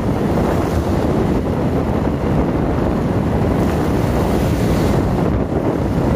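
Wind buffeting the microphone over the steady, loud rushing of heavy rain.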